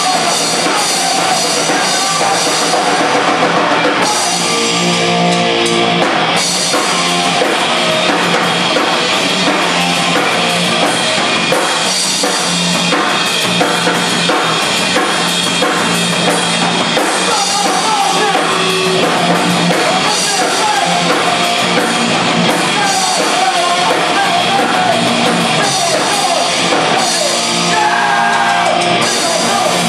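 Live rock band playing loud: electric guitar, bass guitar and drum kit, with sung vocals over the top.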